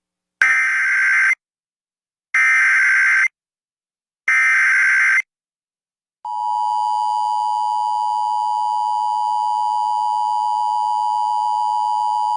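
Emergency Alert System activation: three bursts of SAME digital header data, each about a second long and about two seconds apart, then about six seconds in the steady EAS attention tone starts and holds. The signal announces a flash flood warning.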